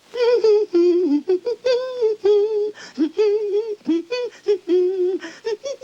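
A cartoon voice humming a wordless, bouncy tune in short, wavering notes.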